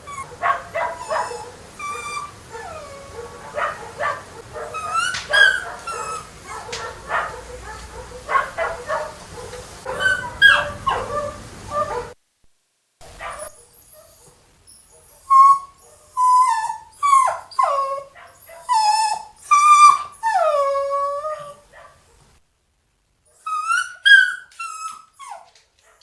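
Poodle yipping and whining in rapid, high-pitched calls, many bending up or down in pitch. After a short silence about halfway through, the background drops away and the calls turn into longer whines that fall in pitch.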